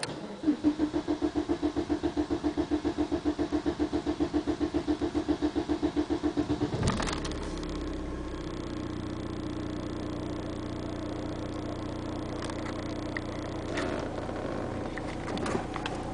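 Audi A6 1.9 TDI four-cylinder diesel cranking on the starter in a long, even rhythm for about six and a half seconds before it catches, then idling steadily. The long crank is the car's hard-starting problem.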